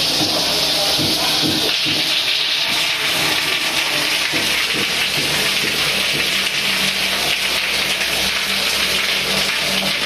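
Water pouring from a ceiling-mounted rain shower head and splashing onto the tiled shower floor, a steady rush of spray.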